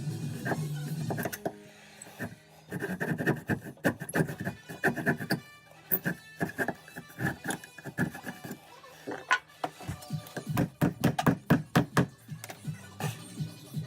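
Background music with many short, sharp notes.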